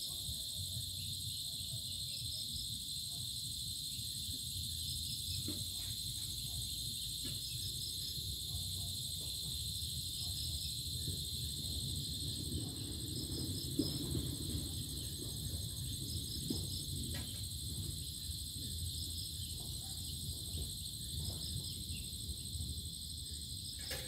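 Crickets and cicadas at dusk: a steady high insect drone with short chirps in quick groups of two or three repeating every couple of seconds, over a low steady rumble.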